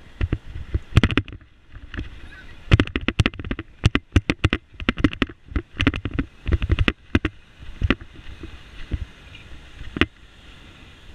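Irregular sharp knocks and rattles in quick clusters, loud over a faint steady hiss, from a bicycle and its mounted action camera jolting over rough pavement; they stop about ten seconds in.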